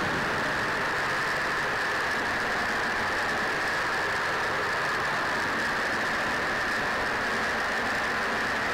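Steady drone of a B-25 Mitchell's two Wright R-2600 radial engines and propellers in cruise flight, heard from inside the Plexiglas nose compartment, with a constant hiss of airflow over it.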